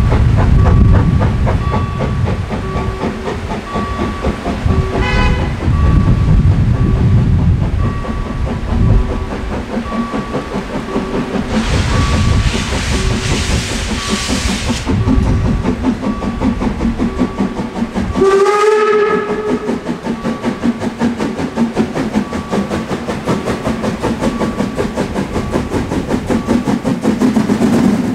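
Harz narrow-gauge 2-10-2 tank steam locomotive 99 7241-5 starting a train: its exhaust chuffs in a steady rhythm, with a hiss of steam from the open cylinder drain cocks about twelve seconds in. It gives a short whistle about five seconds in and a longer whistle about eighteen seconds in. A level-crossing bell dings steadily throughout.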